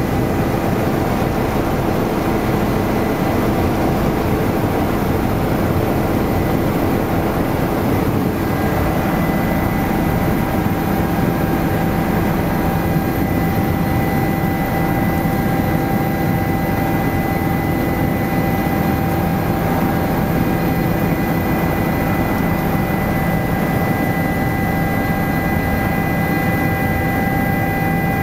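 Helicopter engine and rotor noise heard inside the cabin: a steady, loud drone with several steady whining tones, which shift slightly about nine seconds in.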